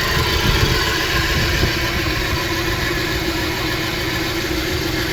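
2013 Dodge Dart engine idling steadily with a misfire, caused by a faulty ignition coil arcing to ground past its boot instead of firing the plug.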